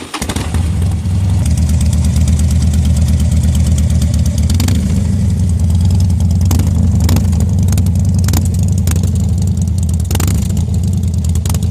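Harley-Davidson Dyna Street Bob's air-cooled V-twin idling steadily through a custom-built aftermarket exhaust, just after a start, with a deep, even low rumble.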